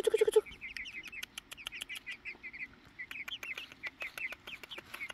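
Rapid run of short, high bird chirps, with many sharp ticks from chickens pecking feed off dry ground. A brief low note sounds at the very start.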